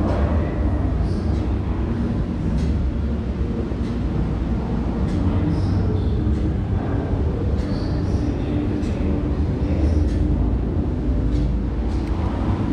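Steady low rumble of a large indoor hall's ambience, with faint distant voices and scattered light clicks over it.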